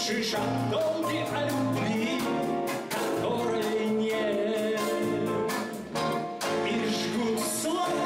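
Live jazz ballad: a man sings in Russian over acoustic guitar, piano and drums with steady light cymbal strokes.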